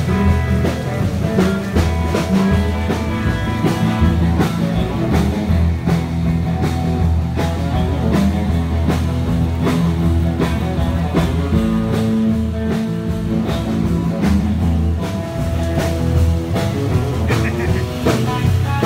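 Rock music with a steady drum beat and heavy bass, playing at a constant loud level.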